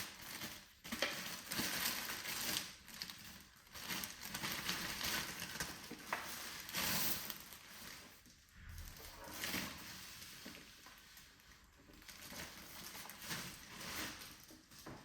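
Packaging and parts being handled during an unboxing: irregular rustling and crinkling with scattered light knocks and clicks.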